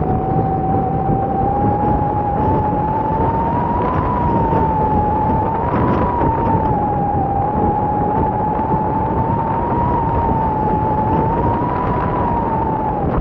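A paragliding variometer sounding a continuous tone whose pitch drifts slowly up and down, over wind rushing across the microphone.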